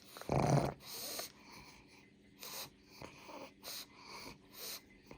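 Pug snorting and snuffling: one loud snort about half a second in, then a run of short, quick sniffing breaths.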